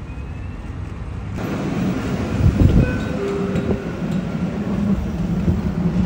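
Dubai Tram running on its rails: a steady low rumble and hum. It suddenly grows louder about a second and a half in, with a heavier knock about a second later.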